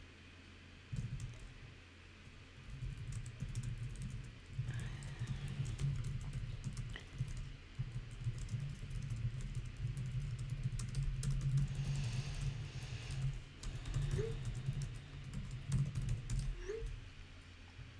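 Typing on a computer keyboard: a run of quick key clicks that starts about a second in.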